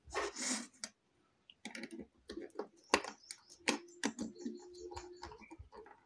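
Scattered small clicks, taps and light scrapes of hands working wire and a small metal tool on the terminal screws of a plastic switch-board box, as a wire is fastened to a socket terminal.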